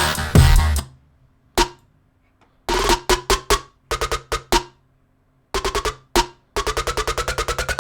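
Electronic dubstep track playing back: a heavy bass passage cuts off within the first second, then sparse stuttering drum hits with silent gaps between them. About two-thirds in, a rapid drum roll of about ten hits a second starts, with a rising pitch building up under it.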